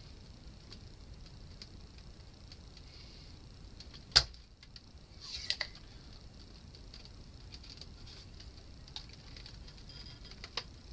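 Small clicks and taps of hand tools working on an amplifier circuit board during soldering repair. There is one sharp, loud click about four seconds in and a short scraping rasp a second later.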